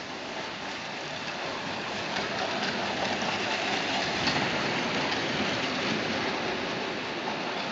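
Track bicycles' tyres rumbling on the wooden velodrome boards, with the hum of a disc wheel. The sound swells as three riders sweep past close by, loudest around four to six seconds in, then eases a little.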